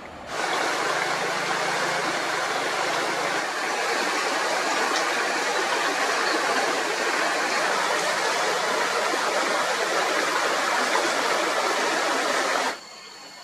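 Steady, loud rushing water noise with no pitch to it, cutting in suddenly just after the start and cutting off suddenly near the end.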